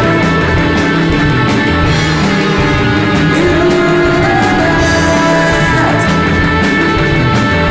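Alternative rock music: a dense, loud band texture with guitar over a steady beat, with a gliding guitar line a few seconds in.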